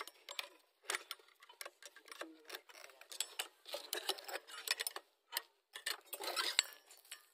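Irregular light clicks and taps, several a second, of small hard objects being handled.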